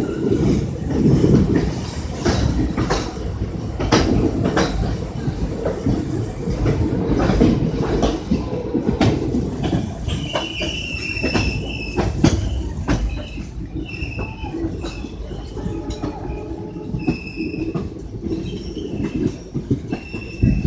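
Passenger train running on the track: a steady rumble with wheels clacking over rail joints. From about halfway through, the wheels give repeated short high squeals.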